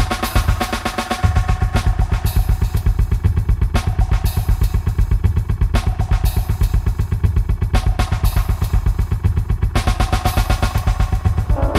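Music built on a looped drum beat: rapid, even bass pulses that get heavier about a second in, with a sharp accented hit about every two seconds.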